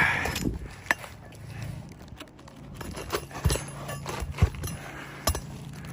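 Shingle-removal work on an asphalt roof: a short scrape at the start, then scattered sharp clicks and taps as nails are worked out from under lifted shingles.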